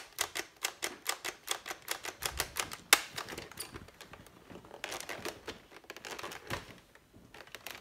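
Empty plastic Nerf blaster being dry-fired: a fast run of sharp clicks, about six a second, from the trigger and priming mechanism, the loudest about three seconds in. The clicks then turn sparse, with some handling rustle.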